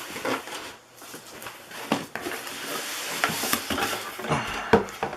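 Cardboard box and packing material being handled as a small subwoofer is unpacked: continuous rustling and scraping with a few sharp knocks.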